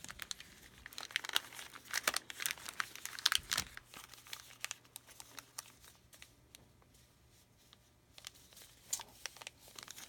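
Trading card pack wrappers crinkling and tearing as packs are handled and opened, in irregular crackles that thin out for a few seconds past the middle and pick up again near the end.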